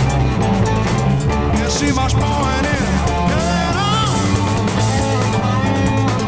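Rock band playing an up-tempo progressive rock song with drum kit and bass, and a lead line bending up and down in pitch through the middle.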